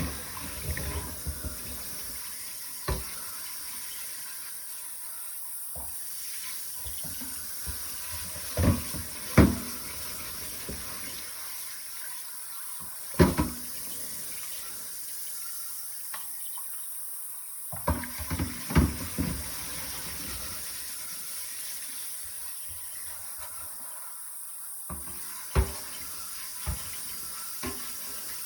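Tap water running steadily while a cast iron Dutch oven lid is scrubbed with a steel-wool soap pad, with a few short sharp knocks of the iron against the sink now and then.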